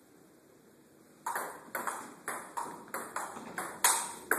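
Table tennis ball clicking on the table and the players' rubber bats in a rally that opens with a backspin serve. After about a second of quiet, sharp clicks come about three a second, closer together toward the end.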